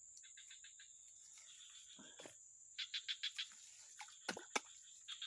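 Faint swamp-forest insect chorus: a steady high-pitched drone with short runs of rapid chirps, about ten a second, coming three times, and a few sharp clicks a little after the middle.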